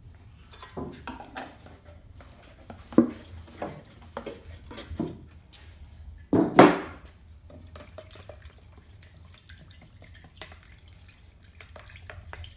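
Automotive basecoat paint and reducer being handled and stirred in a plastic mixing cup with a wooden stir stick: irregular taps and scrapes, with a louder knock about three seconds in and the loudest about six and a half seconds in.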